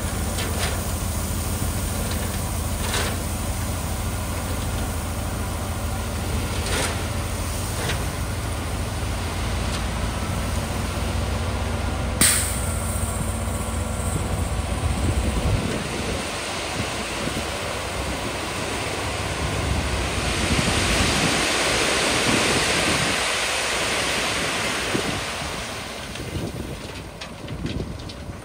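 Heavy diesel engine of road-building machinery running steadily, with a few sharp metallic clanks, the loudest about twelve seconds in. About halfway through the deep engine rumble drops away, and a broad rushing noise swells and then fades near the end.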